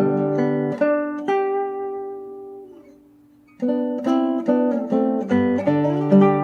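Background music of plucked acoustic guitar, with notes and chords that ring and fade to a brief pause about two seconds in, then resume with about two plucks a second.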